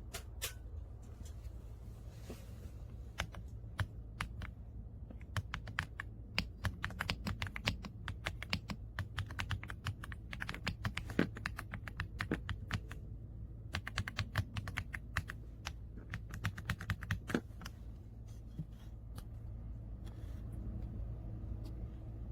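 Typing on an AULA F99 mechanical keyboard: quick runs of keystrokes with a brief pause partway through, stopping about 17 seconds in.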